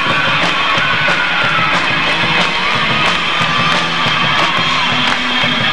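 Live rock band playing loudly: an electric guitar lead with bending notes over drums and cymbals, with keyboards.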